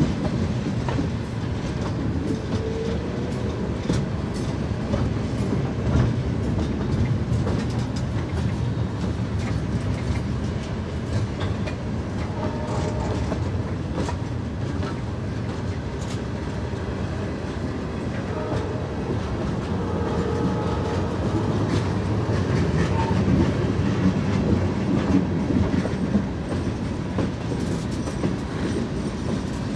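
Loaded freight cars of a slow freight train rolling along the track: a steady rumble with wheels clacking over rail joints and a few brief, faint wheel squeals.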